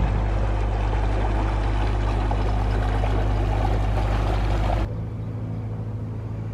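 Water rushing steadily over the low hum of a narrowboat's engine running. About five seconds in the sound drops abruptly, leaving a quieter engine hum.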